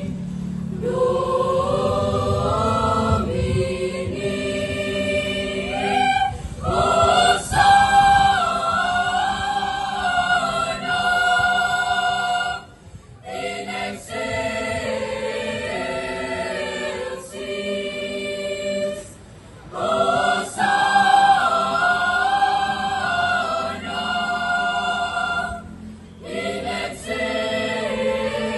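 Junior high school mixed choir of boys and girls singing in harmony, in held phrases with several short breaks between them.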